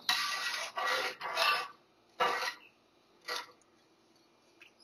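A long slotted metal spoon stirring soaked rice, chickpeas and water in a metal pot, scraping and swishing, to mix in the salt. A run of quick strokes lasts about two seconds, then come two single strokes about a second apart.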